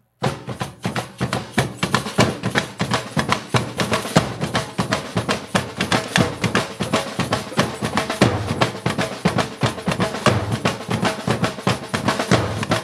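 Drums playing a fast, dense rhythm of bass and snare strokes, starting abruptly just after the start.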